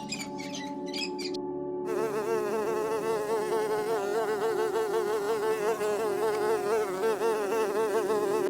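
A flying insect buzzing, starting about two seconds in, its pitch wavering constantly up and down.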